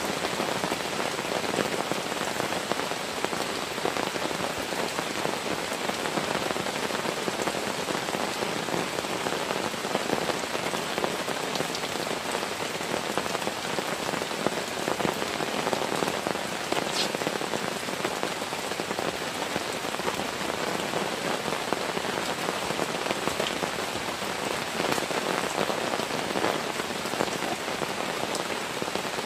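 Heavy rain falling steadily, a dense, even patter of drops striking a surface.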